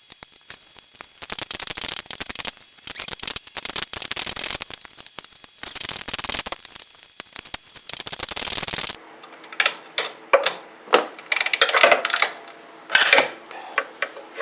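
Hand ratchet wrench clicking rapidly as a muffler mounting bolt is backed out, for about nine seconds, then sparse metal clinks and knocks.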